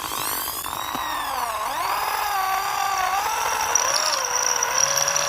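Power drill motor running, its whine rising and falling in pitch as the speed changes.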